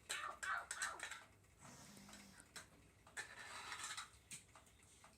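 A child's mouth-made dinosaur sound effects: a few short vocal noises that bend in pitch, then a longer breathy hiss about three seconds in.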